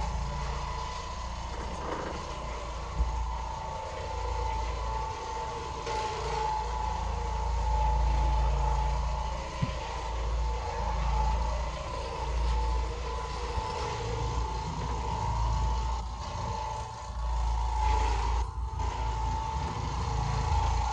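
Oreck Orbiter orbital floor machine running while it scrubs carpet: a steady motor whine over a low rumble that rises and falls.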